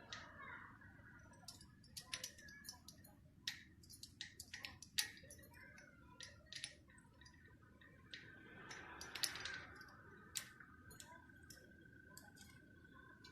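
Cockatiels: faint scattered sharp clicks with a few short soft chirps, and a thin steady high tone from about eight seconds in.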